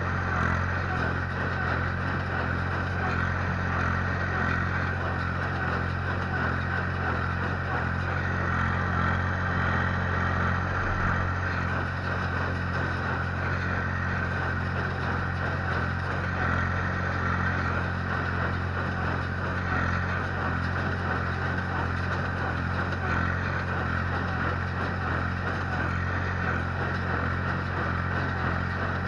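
Ursus C-360-3P tractor's three-cylinder Perkins diesel engine running steadily under load, driving a small square baler through the PTO while baling straw.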